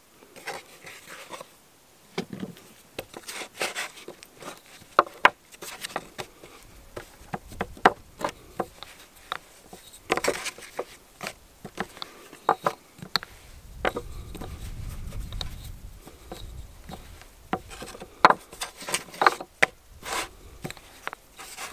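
Hands patting and pressing flatbread dough on a round wooden board, with scattered light taps and knocks of the board and a wooden rolling stick against a wooden table. A low rumble runs for a couple of seconds a little past the middle.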